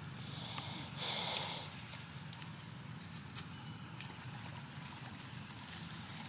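Quiet outdoor ambience with a steady low hum, a brief rustling noise about a second in, and a single sharp click a little after the middle.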